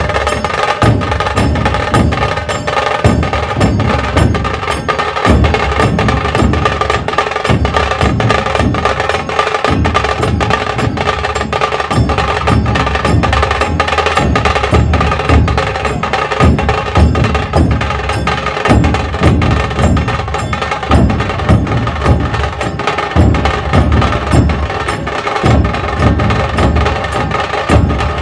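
Dhol tasha ensemble playing: deep barrel-drum beats driven by fast, dense stick strokes on the tashas, with a steady metallic ringing over the top.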